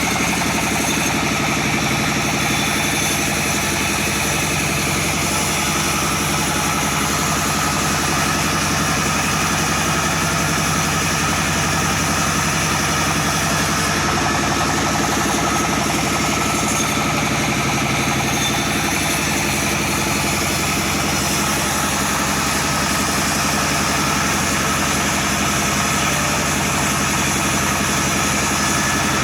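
Chainsaw engine running steadily throughout, its pitch shifting slightly a few times.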